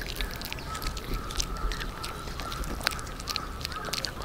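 An animal calling: one long, thin held note, then a few short up-and-down gliding notes near the end, with small scattered clicks.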